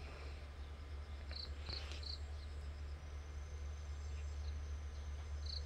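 Quiet outdoor ambience: a steady low rumble under faint short high chirps, three in quick succession about a second and a half in and one more near the end.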